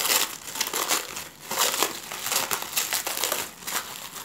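Clear plastic wrapping film rustling and crinkling as hands pull it off two small packages: a dense run of irregular crackles with short lulls.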